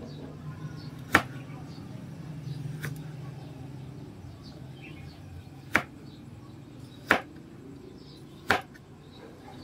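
Kitchen knife cutting vegetables on a cutting board: five sharp knocks of the blade striking the board, a second or more apart, the second one fainter, over a low steady hum.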